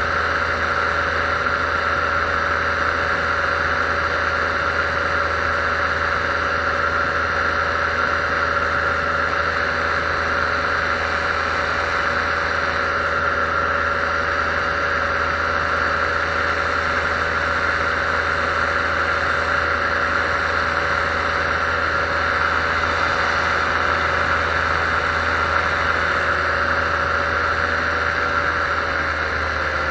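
Paramotor engine and propeller running steadily at cruise power in level flight, with a slight drop in pitch near the end.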